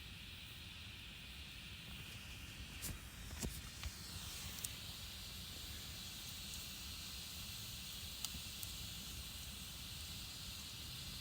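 Campfire burning with a steady hiss and a few sharp crackles and pops, clustered around three to five seconds in and again near eight seconds.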